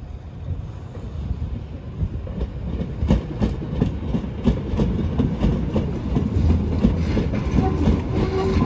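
Berlin U-Bahn train approaching and running into the station, its rumble growing louder, with wheels clattering over rail joints and points from about three seconds in.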